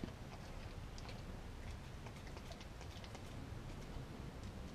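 Dog licking and nibbling scraps of raw food off a concrete floor: faint, scattered small clicks and ticks from its mouth and tongue.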